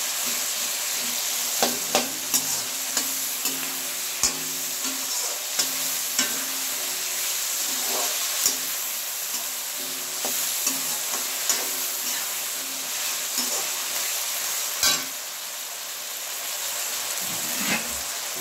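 Small onions and tomatoes sizzling in oil in a pan as they are sautéed and stirred, with a steady high hiss and sharp knocks of the spatula against the pan every second or so.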